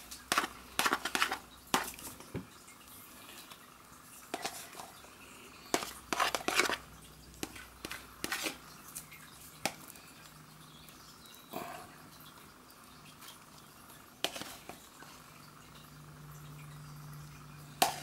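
Mixing bowl and spatula knocking and scraping as thick ice cream mixture is tipped and scraped out into a plastic tub. The sharp clacks come irregularly, with a quick cluster in the first two seconds, more every second or two after, and the loudest knock near the end.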